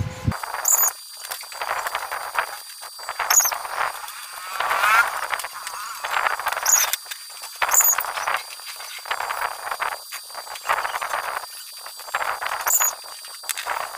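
Arc welding with a 2.0 mm stainless-steel stick electrode (SS-308) on stainless tubing: the arc crackles and sizzles in uneven spurts, breaking off and restriking every second or so.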